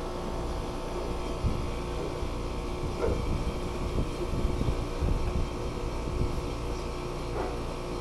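Trane 17 SEER two-stage outdoor air-conditioning unit running steadily: an even hum from the compressor and condenser fan, with an uneven low rumble underneath.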